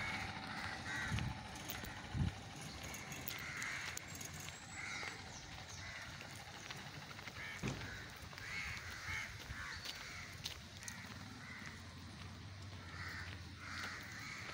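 Crows cawing: short calls, often two or three together, repeating every few seconds. A few soft thumps in between.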